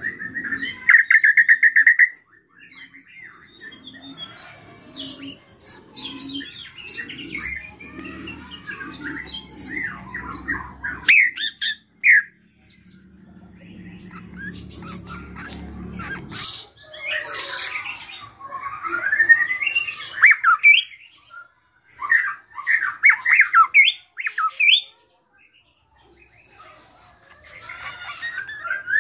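Drongo (srigunting krantil) singing a varied, chattering song of whistles, squeaky notes and rapid trills: the full, mixed repertoire that keepers call 'isian'. A low rumble sits under the song twice in the middle, and the bird pauses briefly near the end.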